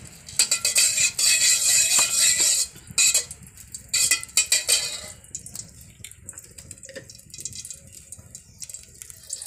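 Metal spatula scraping and clinking around the inside of a hot metal kadai, spreading a spoonful of ghee. Long scraping strokes during the first five seconds, then only light occasional taps.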